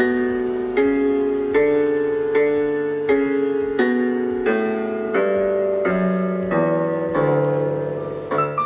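Casio portable electronic keyboard played by hand: a slow melody over chords, a new note or chord about every three-quarters of a second, with a few quick notes near the end.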